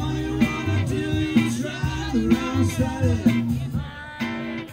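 Live band playing a rock number: drums, electric bass and saxophone, with a man singing. The music drops back and gets quieter in the last second.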